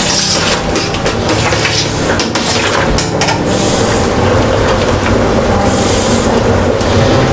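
Wort boiling hard in a stainless-steel electric brewing kettle, a loud steady bubbling with a low hum underneath, while a paddle scrapes along the bottom of the kettle and knocks against it a few times.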